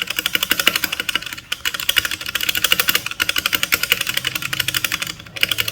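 Mechanical keyboard spacebar, fitted with an Akko Tokyo World Tour R2 PBT keycap, being pressed rapidly over and over in a sound test. It makes a fast, continuous run of key clacks, with a brief pause about five seconds in.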